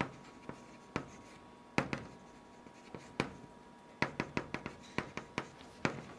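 Chalk strokes and taps on a blackboard as characters are written: a few scattered strokes at first, then a quicker run of taps from about four seconds in.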